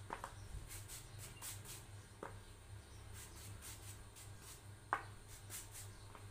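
Thin foil paper crinkling and rustling as it is handled, with a few light clicks, the sharpest about five seconds in.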